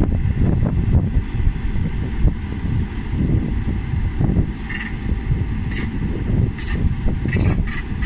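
Backhoe loader's diesel engine running with a low, uneven rumble while the hydraulics move the telescoping stick. A few short, faint clicks come in the second half.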